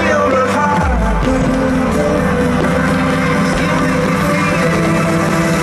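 Loud soundtrack music of a fireworks show, with a rock feel.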